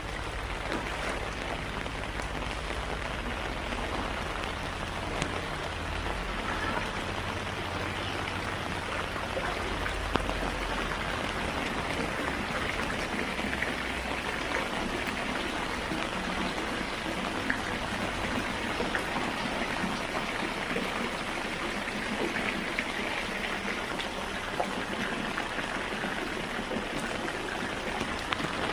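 Heavy rain falling steadily, with scattered louder drop hits, and a low rumble under it for about the first ten seconds.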